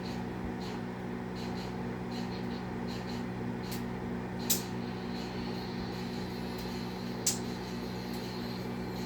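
Microwave oven running with a steady hum while it heats food. Two sharp clicks, about four and a half and seven seconds in.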